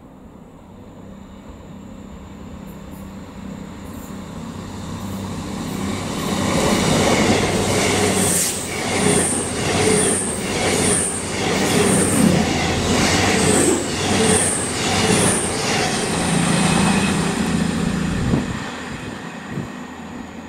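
Class 221 Super Voyager diesel multiple unit passing through at speed, its underfloor diesel engines and wheels on the rails. The sound builds steadily as it approaches. About seven seconds in the carriages rush past for about ten seconds, with a high hiss that pulses roughly once a second, then the sound drops away sharply and fades as the train recedes.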